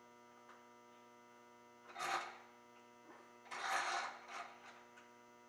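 Steady electrical mains hum, broken by two short rushing noises: one about two seconds in, and a longer one about a second and a half later.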